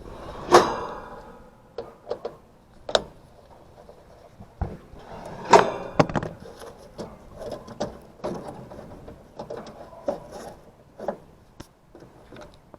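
Scattered knocks, clicks and clanks of metal parts being handled, with two louder metallic bangs, about half a second in and about five and a half seconds in, that ring briefly.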